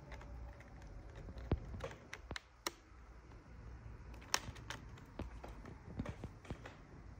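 Light, sharp plastic clicks, about ten of them at uneven intervals, as a 2018 MacBook Pro's spacebar keycap is pressed down onto its butterfly mechanism and its clips are snapped into place.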